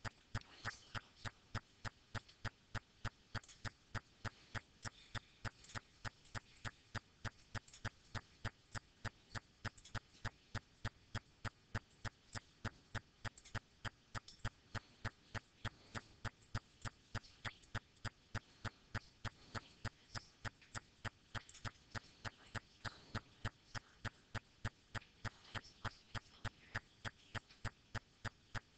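Faint, steady ticking: short, evenly spaced clicks at about three a second.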